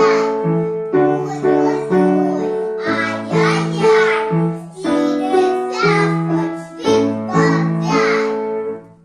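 Two children singing a duet with instrumental accompaniment, the closing phrases of the song. The music dies away right at the end.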